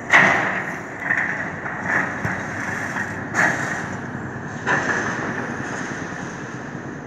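Caterpillar hydraulic excavator demolishing a brick building: a steady mechanical din broken by about five crunching surges of breaking debris, the loudest right at the start.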